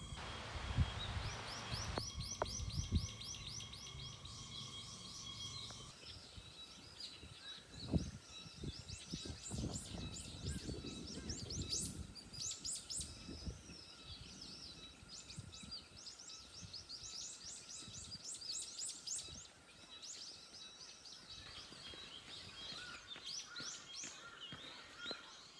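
Birds chirping and trilling: quick runs of short rising notes, repeated many times.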